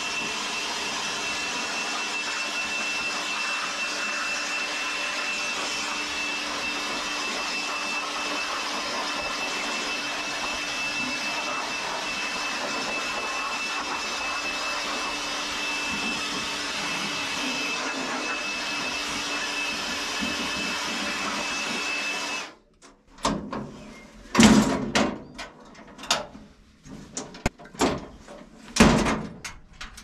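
Cordless handheld blower running steadily with a thin whine, blowing clogged spruce sawdust out of a bandsaw mill's blade-wheel housing. It cuts off suddenly about three-quarters of the way through, and a few knocks and clunks follow.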